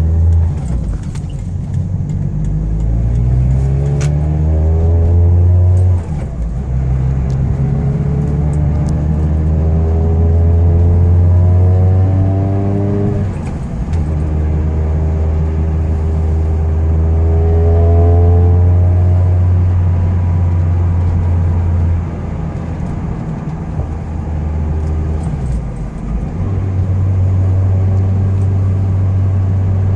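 A 2011 Mazda MX-5 Miata's (NC) four-cylinder engine pulling while driving. Its pitch climbs and then drops at each of three gear changes.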